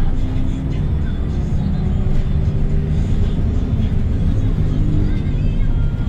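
Hyundai Green City city bus's 240 hp CNG engine (C6GB) running under way, heard from inside the cabin as a low, continuous drone. Its pitch shifts a little as the bus travels.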